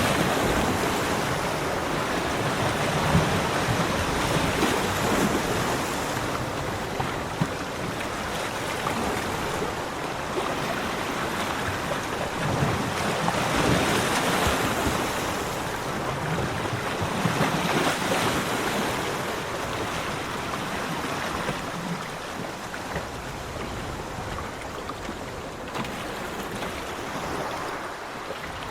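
Sea waves breaking on a beach: a continuous rushing wash that swells with each breaking wave and fades back between them, every few seconds.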